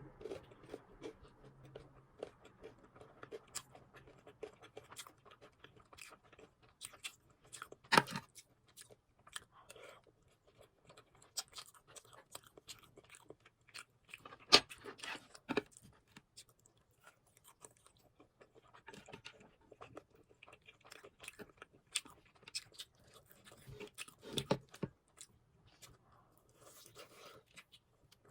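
Close-up crunching and chewing of crispy fried food, a steady run of small crackles broken by a few louder bites: about 8 seconds in, around 15 seconds, and near 24 seconds.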